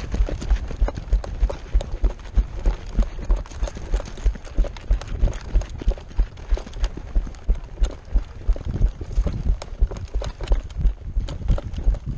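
Running footsteps: heavy, regular thuds about two and a half a second as a person in tactical kit runs on a gravel road and then onto a grassy path, heard from a camera worn on the runner.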